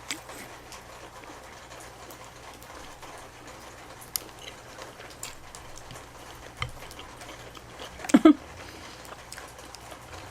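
Eating sounds at a mukbang: scattered small clicks and mouth noises over a low steady background, with a short hummed vocal sound about eight seconds in.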